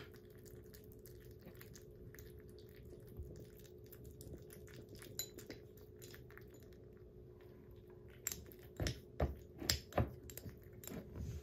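Kittens lapping and chewing soft weaning food from ceramic bowls: a stream of small wet clicks and smacks, over a faint steady hum. Near the end come a few louder clinks of a spoon against a ceramic bowl as more food is added.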